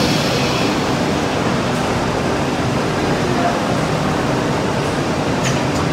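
CNC multi-head boring machine with servo-driven drill heads running: a steady mechanical noise under a murmur of voices, with a couple of short clicks near the end.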